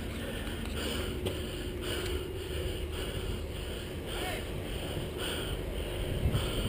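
Close movement noise on a body-worn GoPro: a player's breathing and gear rustling in an even rhythm of about two a second, over a low wind rumble on the microphone.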